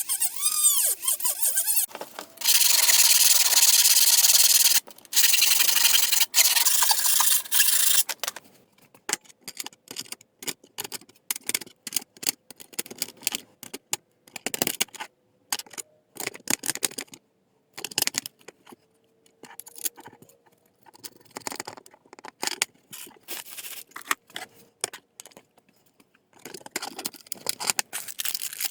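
Scrap sheet metal being worked with hand tools: about six seconds of loud, harsh scraping, broken once, then many short scrapes and taps.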